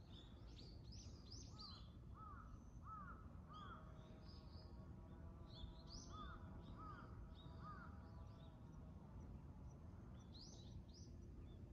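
Faint outdoor bird calls: quick bursts of high chirps about a second in, around six seconds and near the end, with a run of lower, repeated whistled notes between them. A low rumble sits underneath.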